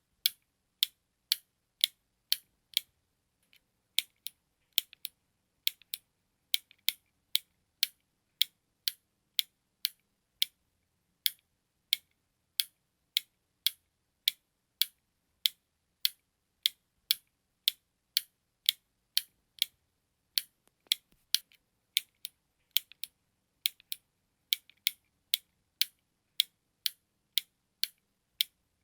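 Button clicking over and over: short, crisp, high clicks about two a second, with brief pauses about three seconds in and near twenty seconds in.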